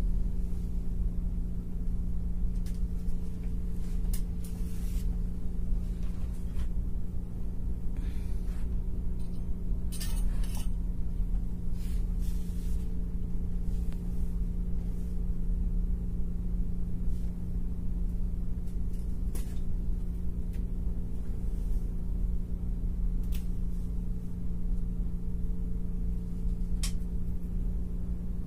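A steady low hum runs throughout, with light clicks and rustles scattered over it from wires and small electronic parts being handled during wiring work.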